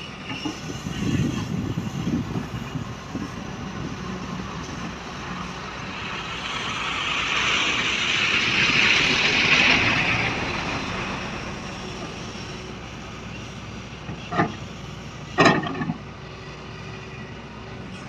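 Matador Shantui hydraulic excavator working, its diesel engine running under load while the bucket digs into soil. A hissing rush swells and fades around the middle. Near the end come two sharp knocks about a second apart.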